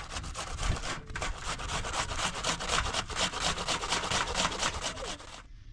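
Onion being grated on a metal box grater: quick, even rasping strokes in a steady rhythm that stop abruptly near the end.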